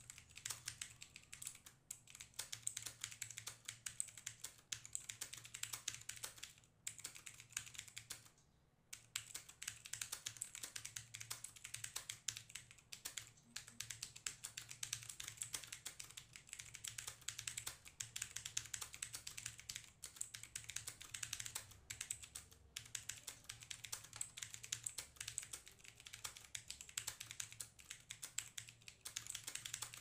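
Fast, continuous typing on a TVS Gold mechanical keyboard with clicky Cherry MX Blue switches: a dense run of sharp key clicks, broken by two short pauses about seven and nine seconds in.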